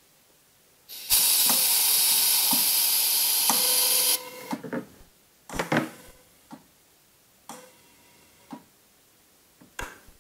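Pressurised CO2 hissing out as the gas is vented from the iGulu F1 beer machine to relieve the pressure behind a foamy pour: a loud hiss for about three seconds that stops abruptly. Several clicks and knocks follow.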